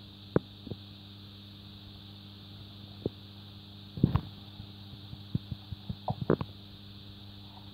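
Dull knocks and thuds on a tuna boat as pole-caught tuna are swung aboard and thrash among the catch in the hold, over a steady low hum. The loudest cluster comes about four seconds in, and a quick run of knocks follows between about five and six and a half seconds.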